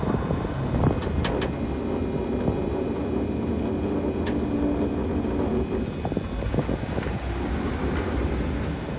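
Steady rumble of a pickup truck on the move, with road and wind noise, heard from the truck bed. Two or three light clicks sound over it, one about a second in and another about four seconds in.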